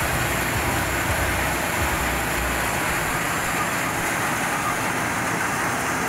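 Small Thai-built tracked corn harvester's engine and machinery running steadily as it cuts through the field, a continuous even noise.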